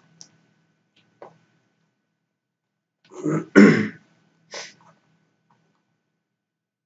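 A man clearing his throat at a microphone: a loud two-part rasp about three seconds in, followed by a shorter one, with a few faint clicks before it.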